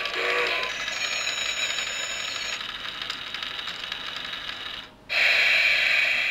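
Toy train coin bank's small motor and gears running with a steady whirring rattle as the little plastic locomotive travels round its track. About five seconds in the noise briefly drops out, then a louder hiss-like sound starts suddenly.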